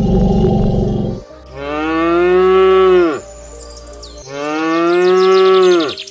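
Cow mooing twice: two long, steady calls, each dropping in pitch as it ends. A loud stretch of music cuts off about a second in, before the first moo.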